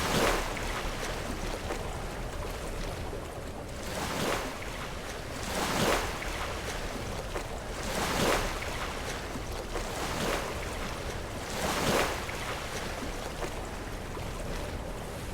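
Sea waves breaking and washing against rocks, with a steady wash in between; six surges come roughly every two seconds.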